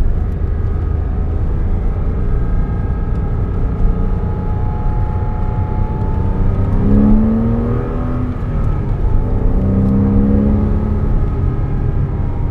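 2006 Porsche Cayman S's 3.4-litre flat-six engine running under way over a steady road rumble. Its note climbs in pitch about halfway through, drops back, and climbs again later as the car accelerates.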